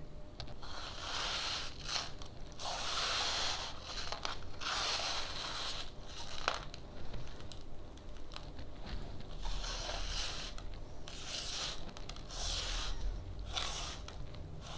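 Iron filings being wiped across paper with a cloth: a series of gritty scraping strokes, about one a second.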